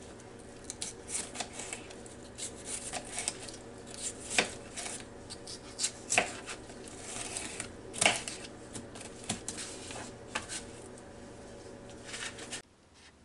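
A knife slicing sweet bell peppers on a cutting board: irregular sharp knocks of the blade against the board, over a steady low hum, stopping abruptly near the end.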